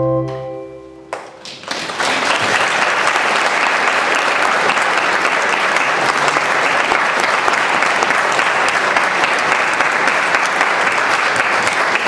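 The final chord on a digital piano fades out, and after a short pause an audience bursts into applause about two seconds in, steady dense clapping.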